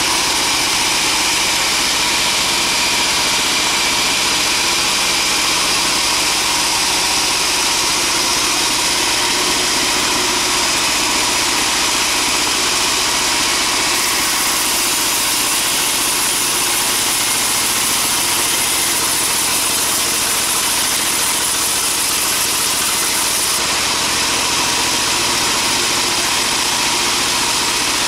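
Sawmill bandsaw machinery running steadily, a continuous mechanical drone with a high hiss over it.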